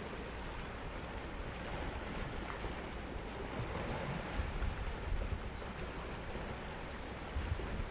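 Small waves washing and splashing against shoreline rocks, with wind buffeting the microphone.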